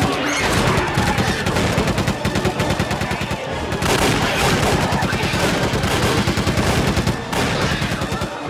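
Rapid gunfire from handguns, shots fired so close together that they run into one continuous volley.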